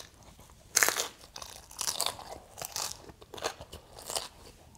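A person chewing crunchy food close to the microphone: a loud crunching bite about a second in, then irregular crunches as the chewing goes on.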